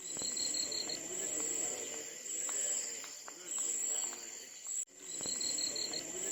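Looped outdoor ambience of insects: a steady high trill with a short pulsing chirp, over a low wavering background. The sound cuts out for an instant about five seconds in, then repeats.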